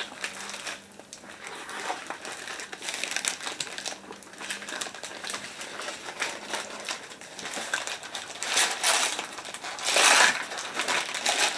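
Paper wrappers around shawarma crinkling and rustling in irregular bursts as they are handled and peeled back during eating, with the loudest rustles near the end.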